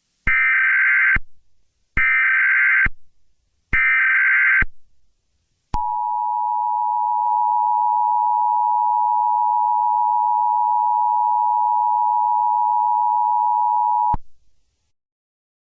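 Emergency Alert System tones: three short digital header data bursts about a second apart, then the two-tone attention signal held steady for about eight seconds and cutting off suddenly.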